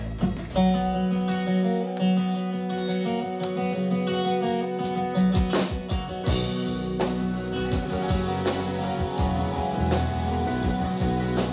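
Live rock band playing a song's instrumental intro: electric guitars ring out held chords, and bass and drums come in about halfway through.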